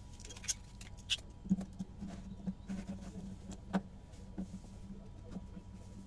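Steel F-clamp being fitted over stacked wooden boards and screwed tight: scattered light clicks and knocks of its sliding jaw and bar against the wood, the sharpest about a second and a half in and near four seconds.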